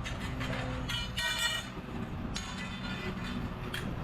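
Engine running steadily, with scrap metal being handled: brief high-pitched metallic ringing about a second in and again about two and a half seconds in.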